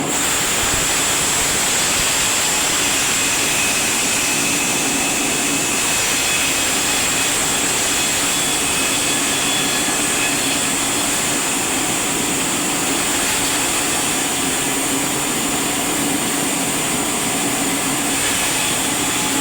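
A woodworking machine running steadily, a continuous loud whirring hiss with a strong high-pitched edge that does not change.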